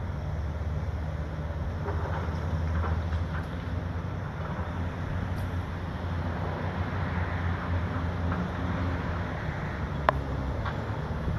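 A large engine running steadily with a low rumble, mixed with wind noise on the microphone; a single sharp click sounds near the end.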